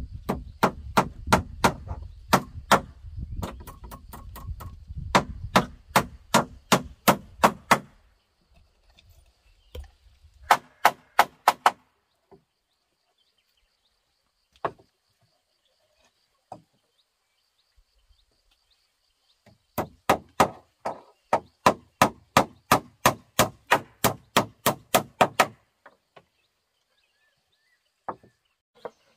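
A blade chopping on wood in quick, even strokes, about three or four a second, in three runs with short pauses between and a few single knocks in the gaps.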